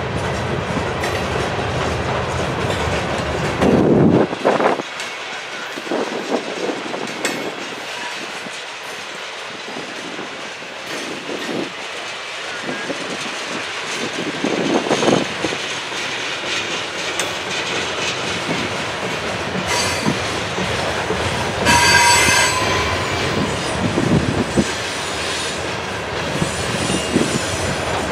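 Covered hopper cars and a tank car of a freight train rolling past at track side: a steady rumble of steel wheels on rail with clicking over the rail joints. There is a louder rush a few seconds in. About three-quarters of the way through comes a short, high wheel squeal.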